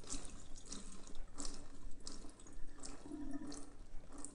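Faint water dripping and trickling from a colander of freshly rinsed elbow noodles into a stainless steel sink as it is shaken to drain.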